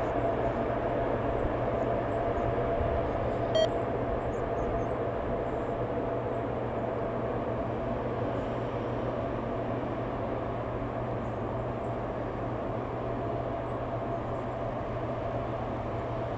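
Steady mechanical drone with a constant mid-pitched whine over a low hum, and one short beep about three and a half seconds in.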